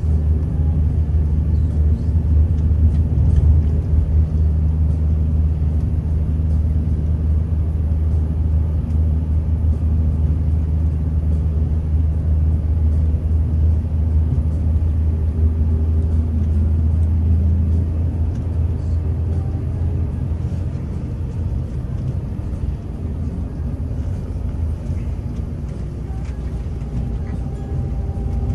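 Scania K360 coach's 13-litre DC13 inline-six turbo-diesel running steadily with a deep drone and road rumble, heard from inside the front cab. The low engine note eases a little about two-thirds of the way through.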